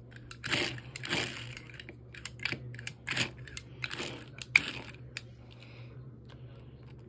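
Handling noise from a toy being picked up and turned over: a run of sharp clicks and short crinkly rustles, with the sharpest click about four and a half seconds in, then fading to a few faint ticks.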